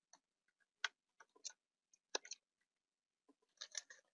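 Faint, irregular clicks and light rattles of plastic wiring connectors and cables being handled and plugged in at the back of a car head unit, the sharpest click about a second in and a short cluster of them near the end.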